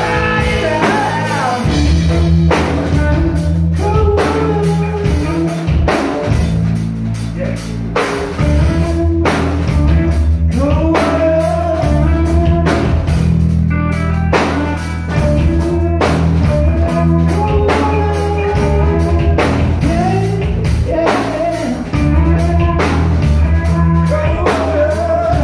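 Live rock band playing loud, steady music: electric guitar and bass over a driving drum kit.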